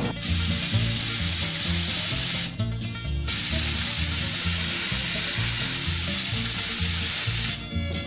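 Compressed-air spray gun hissing as epoxy primer is sprayed, in two long trigger pulls: one of about two seconds, a short break, then one of about four seconds, each starting and stopping sharply. Background music with a steady beat runs underneath.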